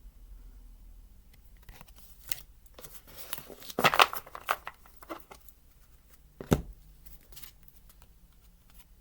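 Tarot cards and paper being handled: a cluster of short rustles and taps, loudest about four seconds in, then one sharp tap about six and a half seconds in.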